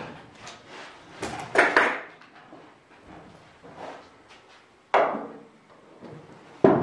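Clecos being pulled from and handled against the aluminium wing skin: a few sharp metallic knocks and clatters, the louder ones about a second in, about five seconds in and near the end. The rivet gun is not firing.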